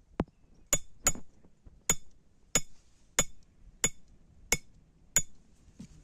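A blacksmith's hammer striking hot iron on an anvil: about nine strikes, each ringing sharply, falling into a steady rhythm of roughly one and a half blows a second.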